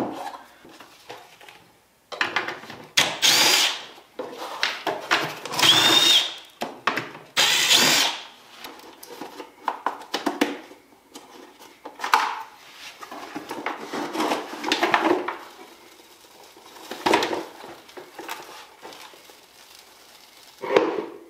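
A cordless drill/driver run in short bursts of a second or two, spinning up and down, alongside knocks and handling of hard plastic as a Jeep heater box housing is taken apart.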